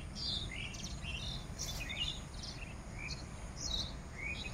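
Small birds chirping, many short quick calls one after another, some sweeping up or down in pitch, over a low background rumble.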